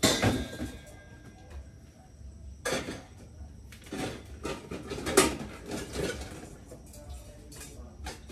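Metal bowl and kitchenware clanking as they are handled. A sharp ringing clank comes first, followed by several softer knocks and clatters.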